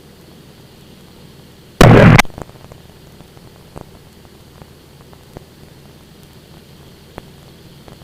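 Steady hiss of cockpit noise over the aircraft intercom, broken about two seconds in by a sudden, very loud burst of static lasting under half a second, followed by a few faint clicks.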